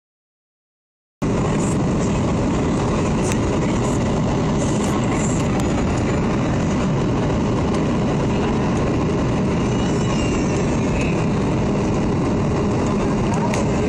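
Steady cabin noise inside a Boeing 737 airliner on approach with its flaps extended: the engines running and air rushing past, even and low-heavy. It cuts in suddenly about a second in, after silence.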